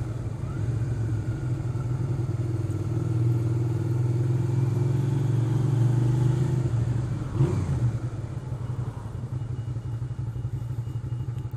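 Loud wind noise rushing over a motorcycle helmet at road speed, with the bike's engine running steadily underneath; the noise eases a little about eight seconds in.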